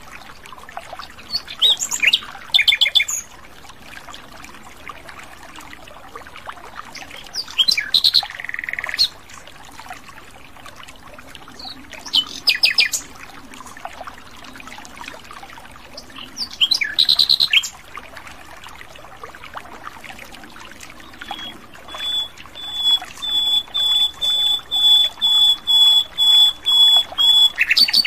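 Common nightingale (sikatan londo) singing: short, varied, clear phrases every few seconds, then near the end a fast run of about a dozen repeated piping notes.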